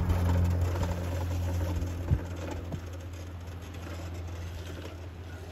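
Small seated scooter's motor humming steadily, fading as it rides away, with a single knock about two seconds in.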